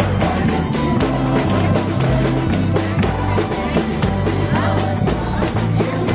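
Band music with a drum kit keeping a steady, fast beat over a bass line that moves from note to note.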